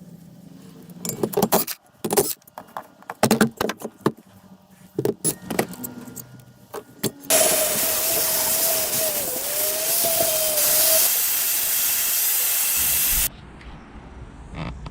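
Hand tools clanking and clicking against metal engine parts for several seconds while a water pump is taken off a spare rotary block. Then a loud, steady hiss starts about seven seconds in, with a faint wavering whistle in it, and cuts off suddenly after about six seconds.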